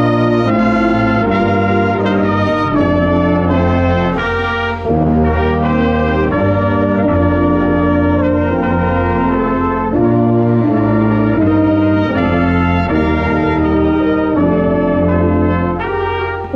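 Indoor winds ensemble playing loudly, with brass carrying sustained chords that change every second or so over a strong low tuba bass line.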